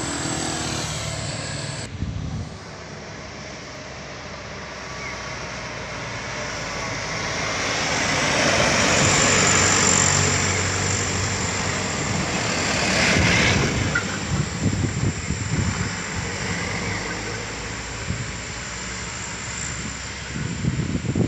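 Heavy vehicles, trucks or tour buses, passing close by on a bend in a mountain road: engine rumble and road noise build to a peak about halfway through, a second vehicle peaks a few seconds later, then the noise eases off.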